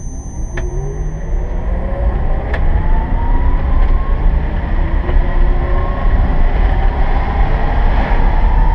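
Electric-converted 1967 VW microbus accelerating: a whine rising in pitch over the first few seconds, and rising again later, over a heavy low rumble of wind and road noise.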